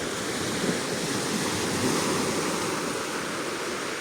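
Calm sea surf washing gently on the shore: a steady wash that swells and eases slightly.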